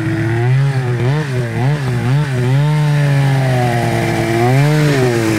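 Polaris 800 RMK snowmobile's two-stroke engine, fitted with an MBRP exhaust, idling and revved in quick throttle blips: several short blips in the first two and a half seconds, a longer rev, then one more blip near the end, dropping back to idle in between.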